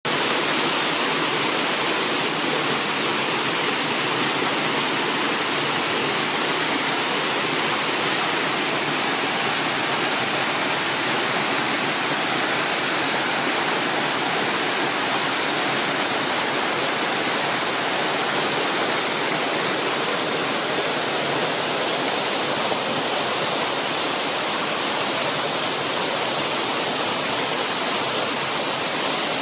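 Small waterfall cascading over rock ledges into a pool: a steady, unbroken rush of water.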